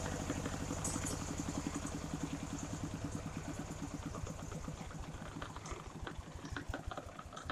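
Engine of a portable circular sawmill idling, its firing beats slowing down and fading as it winds down.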